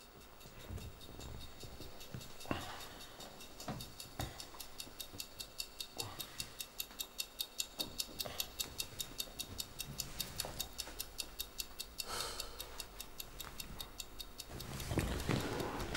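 A clock ticking fast and evenly, joined by soft rustles of a blanket and a bathrobe as someone shifts on a leather sofa, with louder scuffs about two and a half seconds in, about twelve seconds in and near the end.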